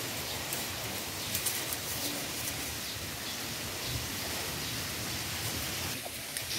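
A steady hiss of outdoor background noise, with a few faint ticks.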